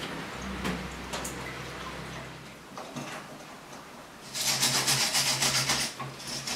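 A hand-held brass wire brush scrubbed rapidly back and forth over the rusty pushrod of a motorcycle rear brake master cylinder clamped in a vise, giving about a second and a half of fast scratchy strokes a little past the middle. Before it come quiet clicks of small metal parts being handled.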